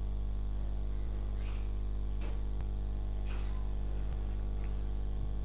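Steady electrical mains hum, a low buzz made of several even tones, with a few faint brief noises over it.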